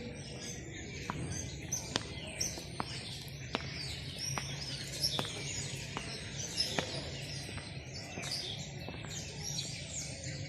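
Many small birds chirping and twittering together, with sharp clicks every half second or so and a steady low hum beneath.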